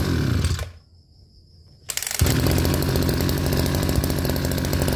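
Kioritz GE3400 brush cutter's 34 cc two-stroke engine running, then switched off about half a second in and winding down to silence. About two seconds in it is pull-started again, catches at once and runs steadily.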